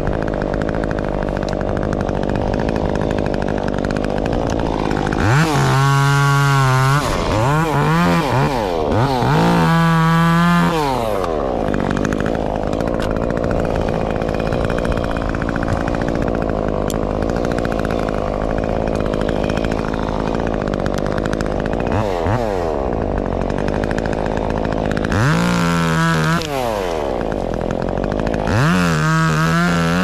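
Stihl top-handle chainsaw idling and revving to full speed in four bursts of two or three seconds each, twice about a quarter of the way in and twice near the end, falling back to idle between them.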